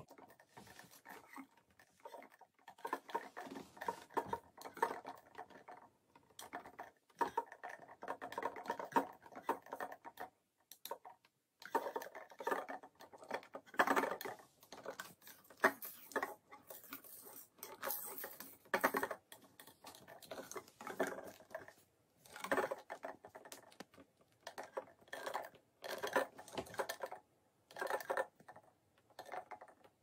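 Clear plastic treat ball with small loose pieces inside, rolling and rattling on a wooden tabletop as a rosy-faced lovebird pushes it with its beak. It comes as a run of clattering, clicking bursts, each a second or two long, with short pauses between them.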